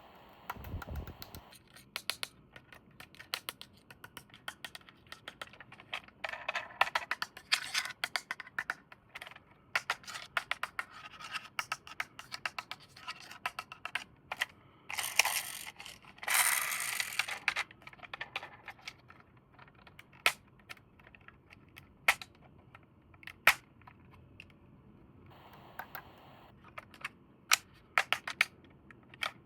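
Hands unboxing and handling plastic toys: scattered sharp clicks and taps of hard plastic, scratching and scraping, and two louder bursts of rustling packaging about fifteen and sixteen and a half seconds in.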